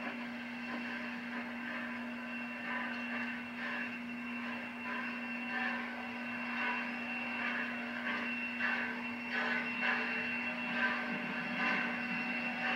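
Steam locomotive moving slowly at close range: a steady hum and hiss, with irregular clanks that come more often in the second half as it draws nearer.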